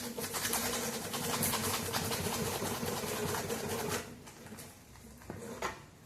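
Sandpaper rubbed quickly back and forth by hand over a homemade model ship, a fast, dense scratching that stops about four seconds in. A couple of light taps follow.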